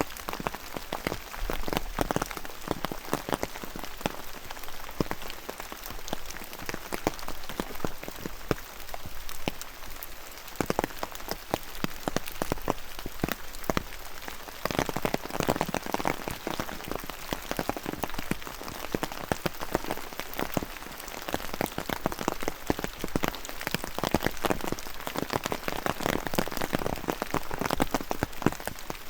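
Steady rain, with many close, distinct drops striking wet surfaces. It grows heavier about halfway through and again near the end.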